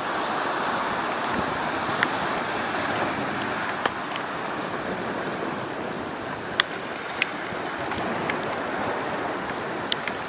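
Rough sea churning with wind, a steady rushing noise, with a few sharp ticks scattered through it.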